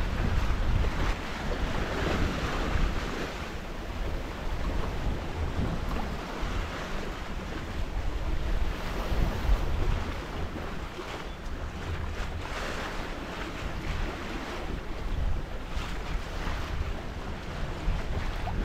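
Wind buffeting the microphone over the rush and splash of water along the hull of a sailing yacht under way, swelling now and then as the boat meets the waves.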